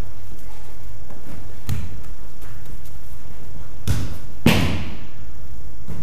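Thuds of a body being thrown onto padded aikido mats in breakfalls: a soft one about a second and a half in, then two more near the end of the middle, the last and loudest echoing in the hall.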